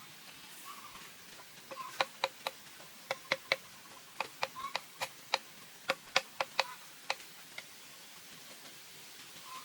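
Light, sharp knocks on bamboo, each with a short hollow ring, coming in irregular quick runs, roughly twenty of them, from about two seconds in until near eight seconds.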